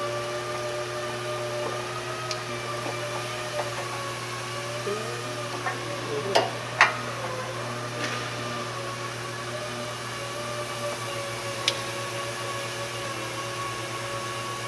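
Steady hum of an unseen electric motor or fan, with a faintly wavering tone. A few sharp clicks and taps sound over it, two close together about halfway through and one more near the end, as the wiring harness connectors are handled.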